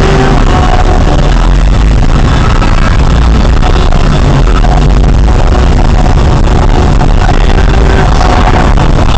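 Loud background music with heavy bass and short held notes.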